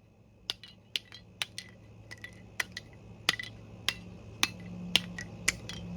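A hammer striking an air horn over and over, sharp clinking blows about twice a second, each with a brief metallic ring. A low steady hum sits underneath and grows louder in the last second and a half.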